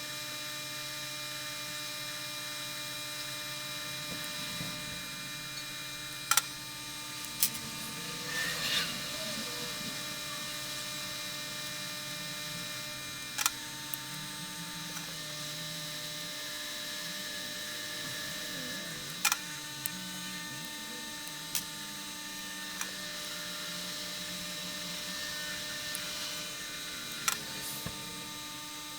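Steady electrical hum from running repair-bench equipment, with a handful of sharp, separate clicks or taps spread through it.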